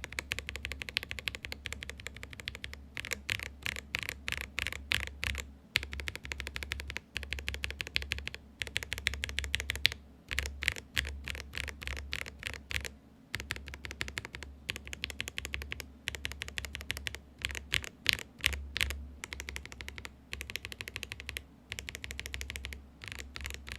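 Typing sound test on a mechanical keyboard fitted with linear switches (Gateron Oil Kings, Ink Blacks and CJs): fast runs of keystrokes broken every few seconds by short pauses.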